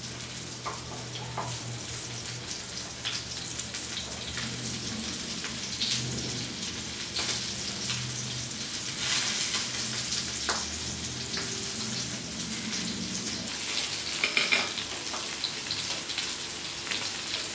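Rava-coated Indian oil sardine (mathi) pieces shallow-frying in a little oil in a nonstick pan, sizzling steadily with fine crackling, with a few light clicks scattered through.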